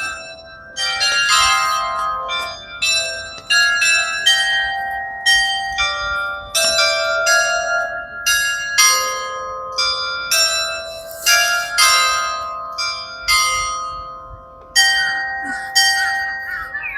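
Tower bells playing a melody: tuned bells struck one after another at changing pitches, each note ringing on under the next.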